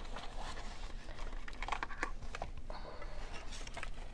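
Small art supplies clicking and rustling as someone rummages through them by hand, searching for a watercolor palette.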